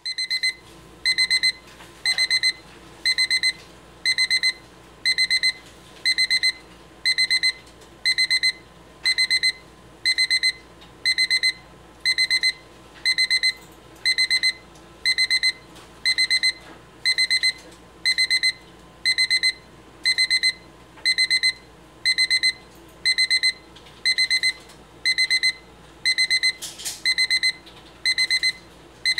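RHYTHM table alarm clock's alarm going off: short bursts of rapid, high-pitched beeping, about one burst a second, repeating evenly.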